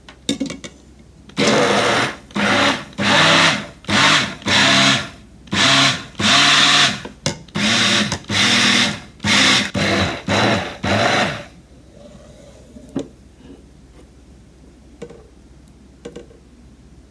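Hand-held immersion blender pulsed on and off about a dozen times in short bursts, crushing pickles in a tall plastic cup. After the bursts stop there are only a few faint taps.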